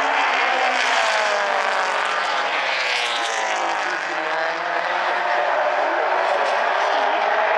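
Several four-cylinder mini stock race car engines running together on track, their pitches rising and falling as the cars accelerate and lift. The engine note dips about three seconds in, then climbs again.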